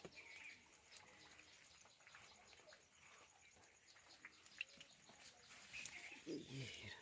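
Near silence: faint outdoor ambience with a few faint, brief bird chirps and scattered light ticks, and a short low sound near the end.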